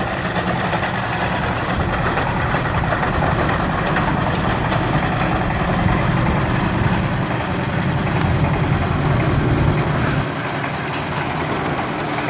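Long-tail propeller engine of a steel ferry barge running steadily, easing off and dropping in level about ten seconds in as the barge settles against the bank.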